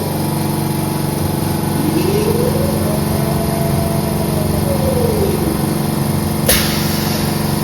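Reflow soldering oven running with a steady machine hum. A faint tone rises and falls in pitch in the middle, and there is a sharp click near the end.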